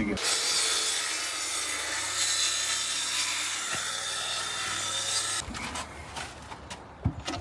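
Corded circular saw cutting lengthwise through a white laminated chipboard panel, running steadily for about five seconds and then stopping abruptly. A few light knocks follow as the cut board is handled.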